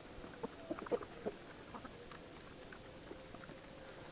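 Chickens pecking at feed on the ground: scattered light taps, busiest in the first second and a half, then sparser.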